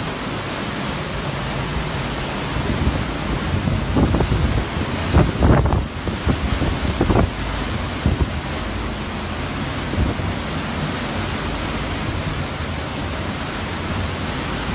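Hurricane Irma's wind and driving rain blowing hard in a steady dense rush, buffeting the microphone, with stronger gusts between about four and six seconds in.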